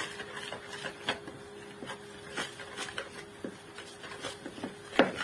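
Wire whisk stirring flour into a wet egg-and-yogurt mixture in a plastic bowl: irregular scraping and tapping strokes against the bowl, with one sharp knock near the end. A faint steady hum runs underneath.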